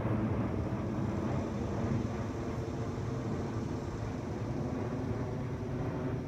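Twin-engine jet airliner high overhead, a steady low engine rumble that eases slightly as it flies away.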